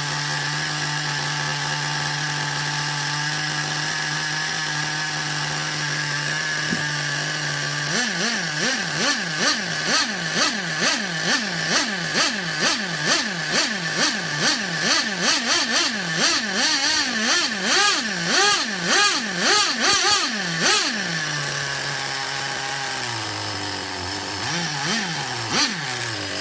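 DTX 18 nitro RC engine, a small two-stroke glow engine, idling steadily, then revved in quick throttle blips about twice a second for some thirteen seconds before settling back to idle. Near the end the idle sags lower in pitch: the idle is set too low.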